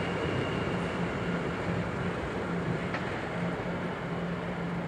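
Electric locomotive running light and moving away along the track: a steady rumble with a low hum that slowly fades.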